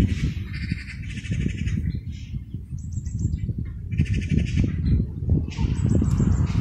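Wind buffeting the microphone with a steady low rumble, and four short bursts of fast, high-pitched rattling chatter, each lasting about half a second to a second.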